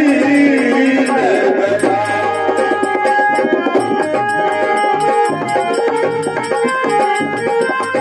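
Live devotional folk music: a man's sung line ends about two seconds in, then an instrumental passage of harmonium with steady held notes over rhythmic dholak drumming.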